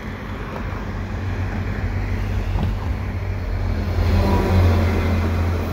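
EMD V16 two-stroke diesel engine of a Via Rail F40PH-2 locomotive running as it approaches and passes beneath, a low steady drone that grows louder and is strongest about four and a half seconds in.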